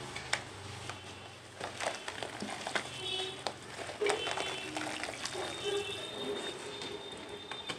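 Soft white cement chunks crushed by hand in a bowl of water: wet crumbling and squelching with scattered small crackles and splashes. A faint voice is heard in the background from about three seconds in.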